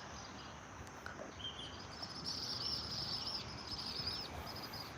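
Quiet outdoor ambience with a rapid, high-pitched chirping trill from a small animal starting about two seconds in and lasting a couple of seconds.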